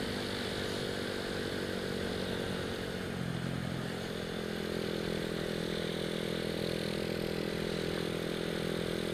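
Honda Astrea Grand's single-cylinder four-stroke engine, breathing through a bored-out Supra X 125 FI muffler, running steadily while the motorcycle is ridden on the road. The engine note changes about three to four seconds in, then holds even.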